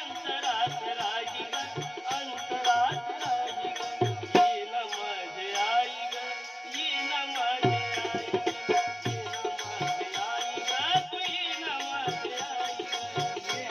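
Instrumental interlude of a Marathi devotional song: a melody over a steady drum beat with a shaker ticking along. The drum drops out for about three seconds near the middle, then comes back.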